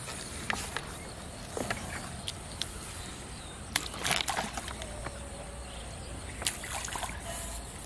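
Shallow water sloshing and splashing, with scattered short splashes and knocks and a busier burst about four seconds in.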